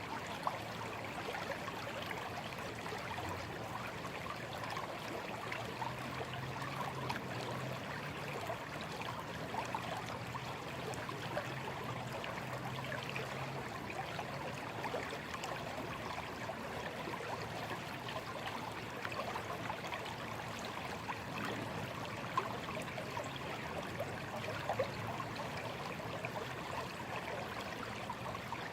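A shallow stream running steadily over stones, a continuous babbling and trickling with small splashes.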